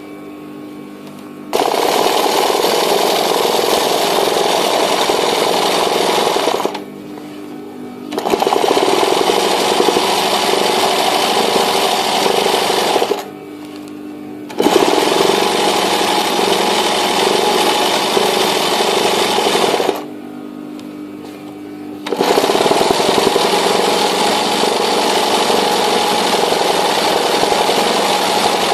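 Sewing machine running fast for free-motion embroidery through hooped fabric, in runs of about five to six seconds broken by short pauses of a second or two as the hoop is repositioned.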